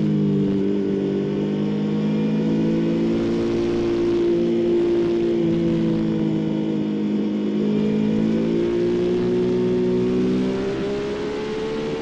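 2016 Yamaha XSR900's 847 cc inline-three engine running through a Scorpion slip-on exhaust under way, heard from on the bike. The engine note holds fairly steady, dips slightly in the middle, then rises steadily over the last few seconds.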